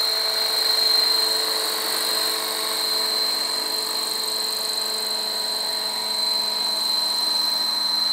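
A 600-size radio-controlled scale model of a Bell 212 helicopter flying, with a steady high-pitched whine over a rushing hiss.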